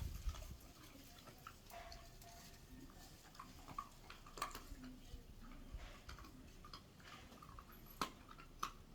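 A dog eating: irregular chewing and crunching clicks, a few of them sharper and louder than the rest.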